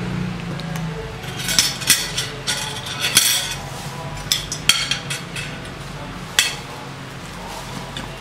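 A fork and plastic seasoning sachets clinking and tapping against a glass plate, a run of irregular sharp strikes lasting about five seconds. A steady low hum runs underneath.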